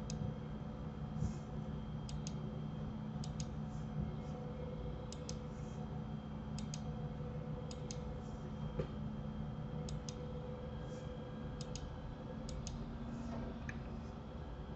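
Computer mouse buttons clicking: about nine quick press-and-release double clicks spread through, over a steady low hum.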